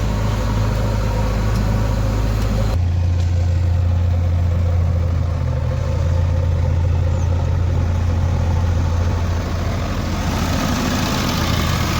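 Heavy diesel engine running steadily. Its note steps up to a higher engine speed a little under three seconds in.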